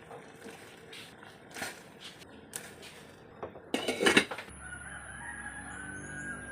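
Chickens, with a rooster crowing in a long held call from about four and a half seconds in, after a few sharp knocks in the first four seconds.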